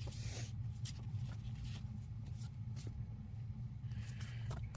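Paper and sticker sheets rustling and crinkling as they are handled and peeled, with a few light ticks, over a steady low hum.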